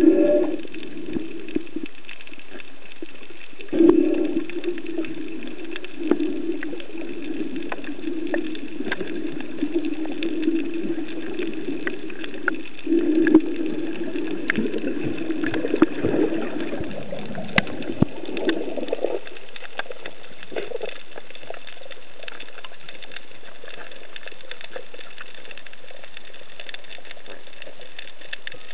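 Underwater ambience: a steady watery hiss scattered with short sharp clicks and crackles. A low hum comes in sharply about four seconds in and fades out near nineteen seconds.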